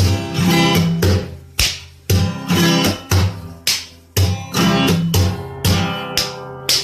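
Background music: strummed guitar chords in a steady rhythm, about two strums a second.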